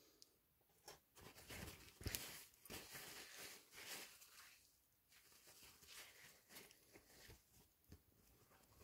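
Very faint, intermittent rustling of paper towel with a few small clicks, as small fossil stones are dried by hand, one sharper click about two seconds in.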